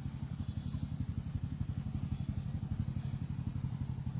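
An engine running steadily at idle, a low, rapidly pulsing throb.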